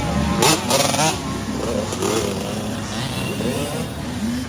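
Several small off-road motorcycles racing past, their engines revving up and down as the riders work the throttle.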